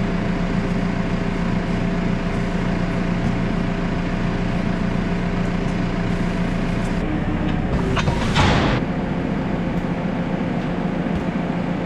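Diesel engine idling steadily with a low hum. Its note shifts about seven seconds in, and a short, loud hiss follows about a second later.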